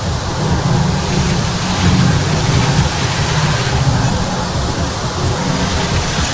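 Experimental noise music from a compilation recording: a loud, steady wash of dense static with a heavy low rumble underneath, with no clear melody or beat.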